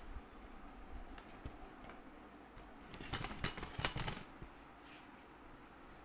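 Merino wool thermal leggings and their paper tag being handled and unfolded: soft rustling with scattered small clicks, and a denser burst of crinkling rustle about three seconds in that lasts about a second.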